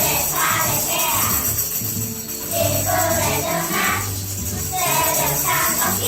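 Primary-school children singing a French song together over backing music, with shaken, jingling percussion running steadily underneath.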